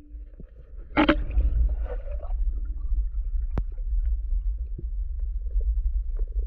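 Underwater sound through the camera's housing: a steady low rumble of moving water, with a sharp knock about a second in and a thin click a few seconds later.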